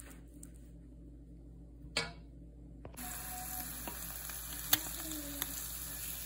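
A single sharp click about two seconds in. Then, from about three seconds, a steady sizzle of hot oil in a frying pan as a sunny-side-up fried egg is slid out onto the plate, with two sharp clicks near the five-second mark.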